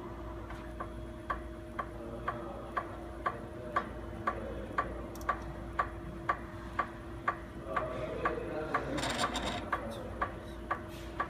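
A winch's worm gear reducer running under its electric motor's steady hum, with a sharp click about twice a second. The clicking comes only while the load is lowered, at 30 clicks per output-shaft turn, matching the 30:1 worm ratio; the owner suspects the gear oil is low or dirty. Between about eight and ten seconds in there is a louder, noisier stretch.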